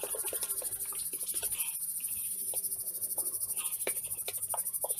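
Heavy cream sloshing inside a sealed glass jam jar shaken hard by hand, a fast rhythmic swishing with scattered knocks, as the cream is churned into butter.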